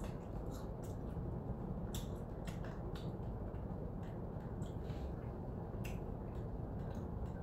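Plastic fork clicking and scraping against a clear plastic salad bowl while picking up salad, a few irregular sharp clicks over a steady low room hum.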